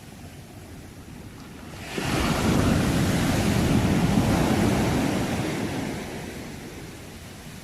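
Ocean wave breaking on the shore: a wash of surf swells up suddenly about two seconds in, holds for a few seconds, then recedes and fades.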